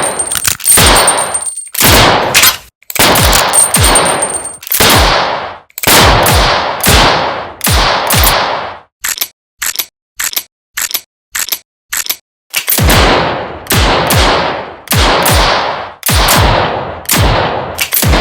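Revolver gunshots fired one after another, around thirty single shots, most with a short reverberant tail. In the middle comes a quicker run of shorter, drier shots, and a faint high ringing tone sits over some of the first few shots.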